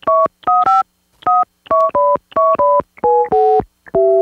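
Telephone keypad dialling a number: a quick, unevenly spaced run of about eleven touch-tone (DTMF) beeps, each a short pair of tones sounding together.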